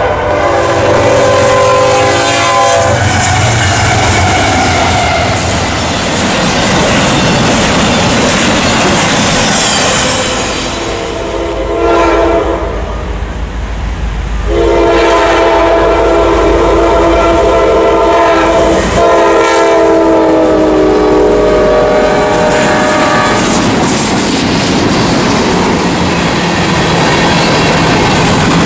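Freight locomotive multi-chime air horn sounding, then the steady rumble and clatter of freight cars rolling past on jointed rail. About halfway through another long horn sequence sounds for several seconds before the rolling clatter carries on.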